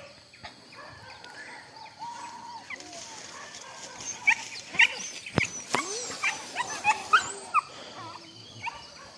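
Hunting dogs yelping, a quick run of short high yelps from about four seconds in to about eight.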